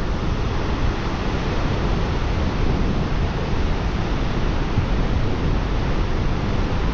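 Floodwater of the Nolichucky River rushing over the Nolichucky Dam: a steady, even rush of water that does not change.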